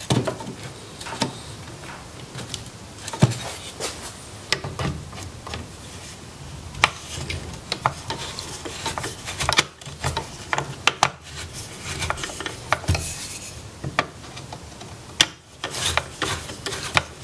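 A rusty nut and bolt being loosened at the pivot of a wooden folding-table leg with slip-joint pliers and a hand tool: metal and wood scraping and rubbing, broken by frequent short clicks and knocks.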